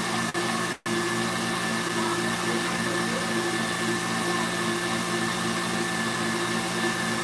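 KitchenAid stand mixer motor running steadily, the wire whisk turning in its steel bowl.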